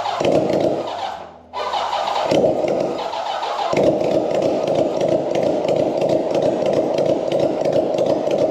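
1983 Kawasaki GPZ1100's inline-four being cranked on the electric starter, stopping briefly about a second in and cranking again. The engine catches about four seconds in and keeps running, on the first tries after a new ignition coil was fitted.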